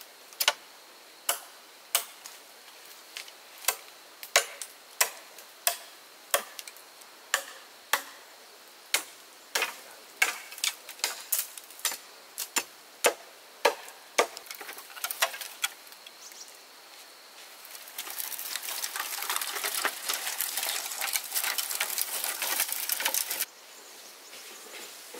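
Wood being chopped by hand: sharp, light knocks at an uneven one to two a second. About eighteen seconds in the knocking gives way to a dense rustling, scratching noise that stops suddenly about five seconds later.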